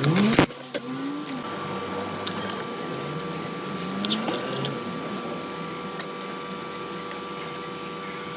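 Stihl MS 362 C-M chainsaw's two-stroke engine running: it revs up sharply right at the start, then drops back and runs on at a lower, steady level with a couple of brief swells in pitch.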